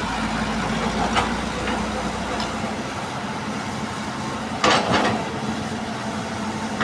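Hitachi EX200 excavator loading soil into a dump truck: the engine runs steadily with a low hum. Short sharp knocks come about a second in, and a louder double knock comes about two-thirds of the way through.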